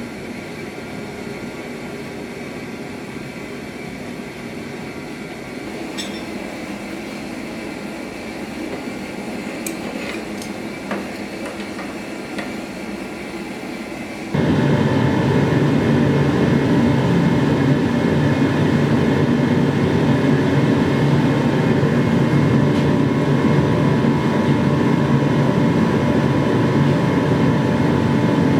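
Workshop machinery running with a steady hiss and hum, with a few light metallic clicks; about halfway through it suddenly gets much louder, as if a machine is switched on or turned up.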